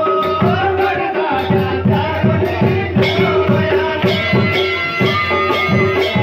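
Kumaoni wedding folk music: drums beating a fast, even rhythm of about three to four strokes a second under a steady held drone, with a melody moving above it.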